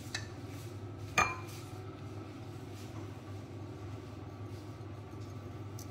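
A metal fork clinks once against a stainless steel mixing bowl about a second in, with a brief metallic ring, after a fainter tap at the start; a steady low hum runs underneath.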